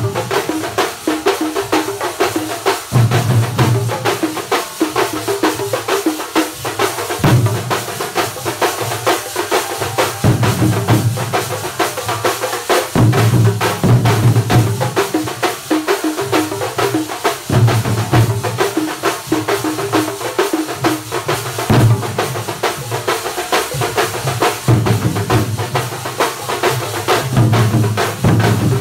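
Live thambolam percussion band: many drums beating a fast, driving dance rhythm, with deep booming stretches that come and go every second or two.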